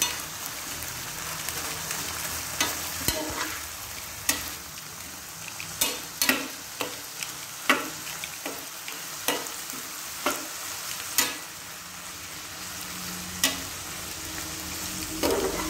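Sliced onions and chicken gizzards sizzling in a frying pan while a spatula stirs them, knocking and scraping against the pan at irregular intervals over a steady frying hiss.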